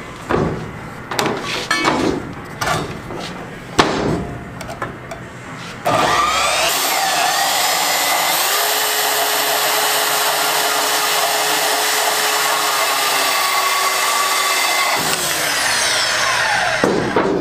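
A few knocks and clinks as steel and the saw are handled, then a corded portable band saw starts about six seconds in, runs steadily while its blade cuts through steel angle iron, and winds down near the end.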